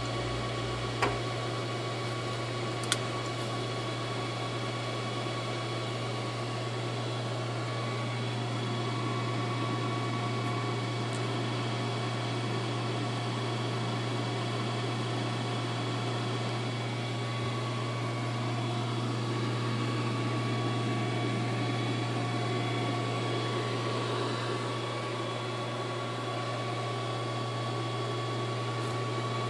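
Steady electrical hum with a fan-like whir from the powered-up cockpit avionics, with two faint clicks in the first few seconds.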